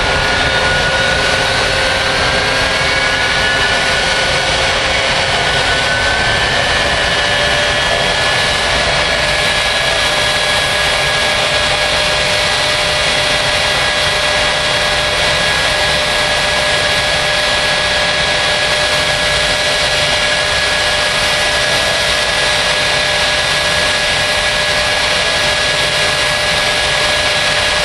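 Jet car's jet engine running in place: a loud, steady rush with a high whine that rises slightly over the first few seconds, then holds steady.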